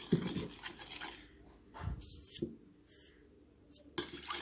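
A spoon clinking and scraping in a dish as ingredients are spooned in and mixed: a few light knocks with soft rubbing between.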